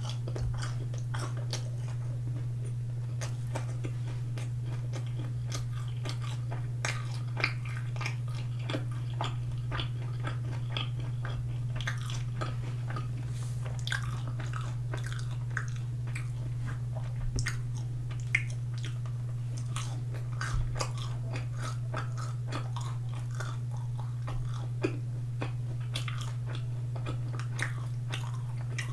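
A person chewing and biting sauce-coated boneless fried chicken close to the microphone, with many short wet clicks and crunches scattered throughout. A steady low hum runs underneath.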